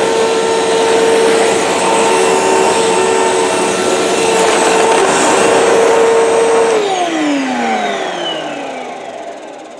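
2005 Hoover WidePath Preferred upright vacuum's 12-amp motor running at full speed with a steady whine, then switched off about seven seconds in and spinning down, its pitch falling as it slows.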